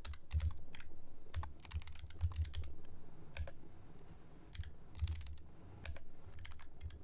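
Typing on a computer keyboard: irregular key clicks in quick runs, with a short pause a little past halfway.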